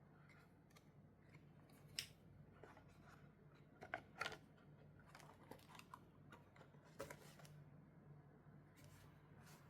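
Faint handling noises of a wristwatch and its packaging: scattered small clicks and light rustles, the sharpest about two seconds in, a cluster around four seconds and another about seven seconds in, over a low steady hum.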